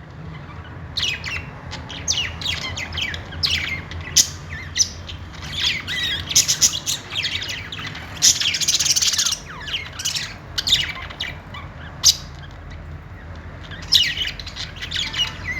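Pet budgerigars chattering: a continuous run of quick chirps and warbles, with a harsher screech about eight to nine seconds in.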